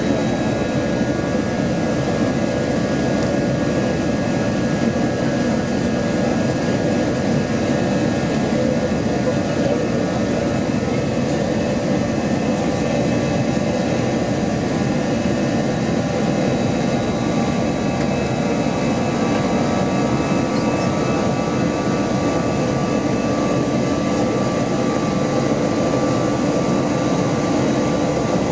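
Steady cabin noise inside an Airbus A321 climbing after takeoff: the continuous rush of airflow and its CFM56 jet engines, with a few faint steady high whining tones.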